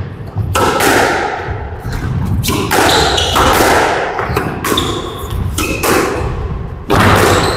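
Squash rally: the ball is struck by rackets and slams off the court walls in a series of sharp, echoing thuds every half second to a second, the loudest near the end. Between the hits come short, high squeaks of court shoes on the floor.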